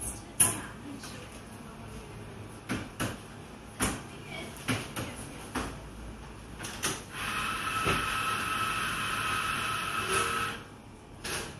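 Café background: scattered sharp clinks and knocks of crockery and cutlery, then a steady hissing whine from a café machine that runs about three seconds and stops.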